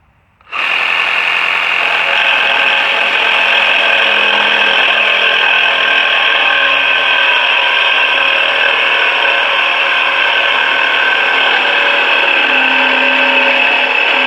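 A motor-driven machine or power tool starts abruptly about half a second in and runs steadily at one speed, with a high whine.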